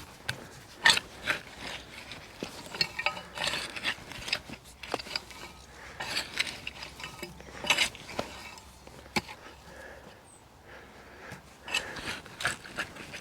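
Garden fork digging into soil, its tines scraping and crunching through the earth in irregular bursts. There is a short lull before a final few strokes.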